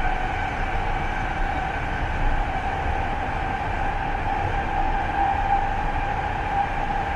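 A BART train car heard from inside, running steadily: a low rumble with a steady high-pitched whine over it.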